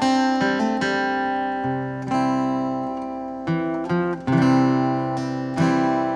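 Solo acoustic guitar played unaccompanied, single picked notes and chords each ringing on over a low bass note.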